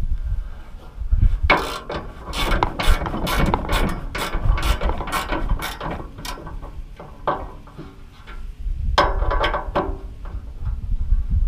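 Ratcheting Allen wrench clicking in quick runs as bolts are tightened, a long run from about a second and a half in and a shorter one about nine seconds in.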